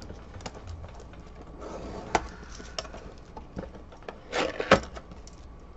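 Utility knife cutting the seal on a small cardboard box, with cardboard scraping and handling and a few sharp clicks; a short, louder scrape comes about four seconds in.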